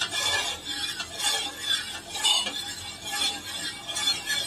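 Metal spoon stirring thick custard in a metal pot, clinking and scraping against the bottom and sides in repeated strokes, about two a second. It is kept stirring while it cooks so that no lumps form.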